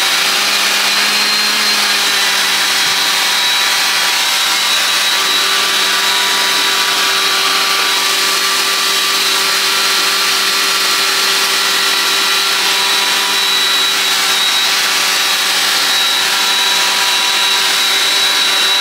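Hair dryer running steadily: a continuous rush of air with a high motor whine and a low hum underneath.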